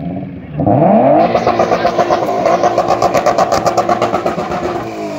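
Car engine revved hard: it climbs steeply about half a second in and is held at high revs with a rapid pulsing. Near the end it drops briefly and revs up again.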